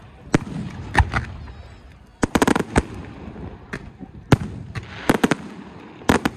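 Aerial firework shells going off in irregular sharp bangs, with a quick run of cracks about two and a half seconds in and another about five seconds in.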